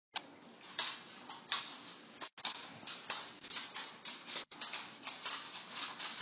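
A dog's claws scrabbling and clicking on a hardwood floor as it braces and pulls in a tug-of-war, in irregular scratchy bursts.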